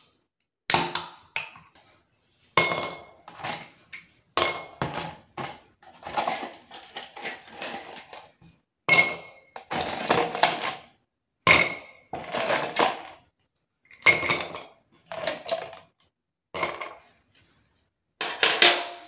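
Ice cubes dropped one at a time into a glass tumbler, each landing with a sharp clink and a short ring, about fifteen times at irregular intervals.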